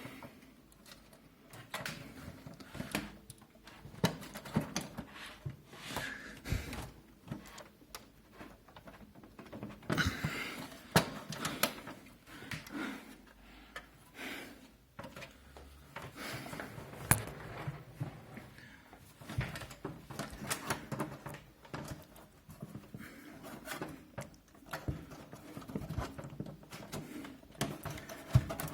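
Irregular plastic clicks, knocks and scraping as the stuck front panel of a Zalman Z11 Neo PC case is pried and wrenched off its clips.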